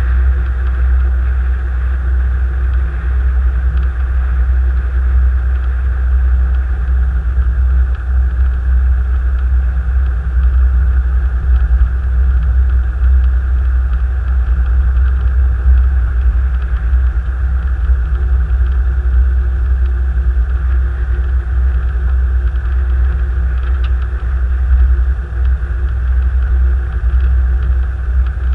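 Car heard from inside the cabin by a dash camera: a steady, loud low rumble of engine and road noise, with no change through the stretch.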